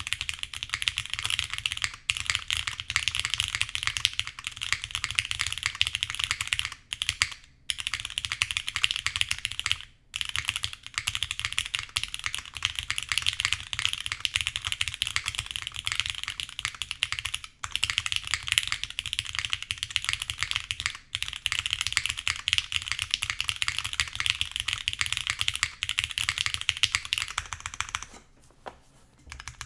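Fast, continuous typing on a Portal custom mechanical keyboard with polished Cherry MX Black linear switches, an aluminium full plate, a 40-durometer O-ring mount, TX stabilisers lubed with 205g0 and GMK Godspeed keycaps. The keystrokes run in a dense stream with a few brief pauses and stop about two seconds before the end.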